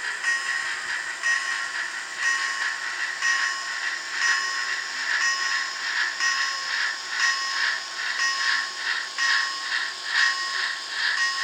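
N scale steam locomotive's LokSound DCC sound decoder playing steam chuffs with hiss through its tiny speaker, the chuffs coming faster after the first few seconds, over a steady high whine.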